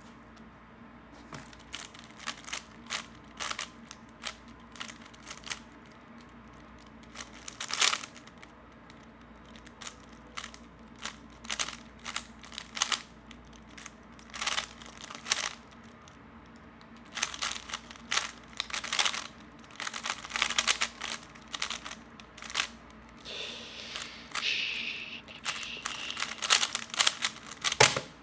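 A 3x3 speedcube being turned by hand: rapid runs of plastic clicks and clacks in bursts, with short pauses between them.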